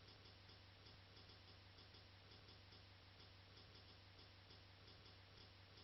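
Near silence: faint, regular ticking at about four ticks a second over a low steady hum.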